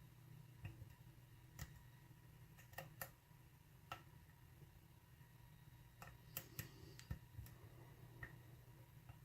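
Sparrows medium hook lock pick probing the pins of a pin-tumbler lock: about a dozen faint, irregular clicks and ticks over a low steady hum.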